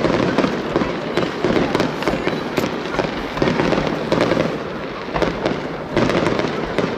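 Aerial fireworks shells bursting in quick succession: a dense, unbroken run of bangs and crackling pops, easing briefly about five seconds in before picking up again.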